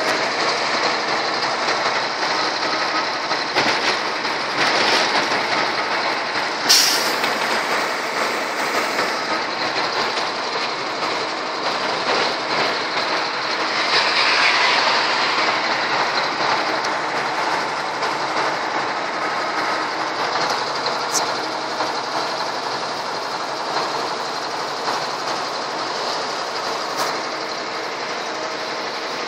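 Steady drone of a vehicle on the move, heard from inside its cab: engine, tyre and wind noise. A sharp click comes about seven seconds in, with a couple of fainter ticks later on.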